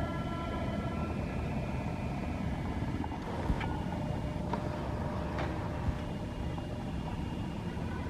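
Steady low outdoor rumble, with a few faint sharp clicks in the second half.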